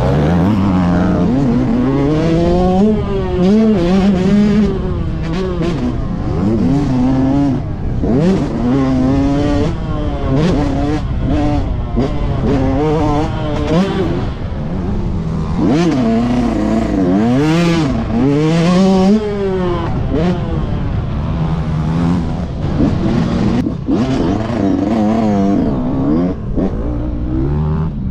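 Yamaha YZ125 two-stroke single-cylinder motocross engine revving hard, its pitch climbing and dropping over and over as the throttle is opened and shut through the corners and jumps. It is heard close up from the rider's helmet.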